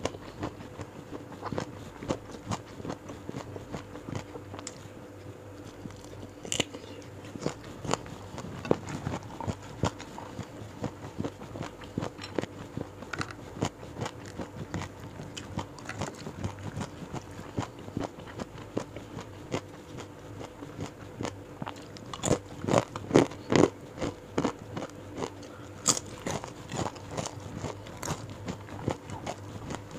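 A person chewing and crunching mouthfuls of food close to a lapel microphone: a run of short, wet clicks and crunches, with a burst of louder crunches a little over two-thirds of the way in.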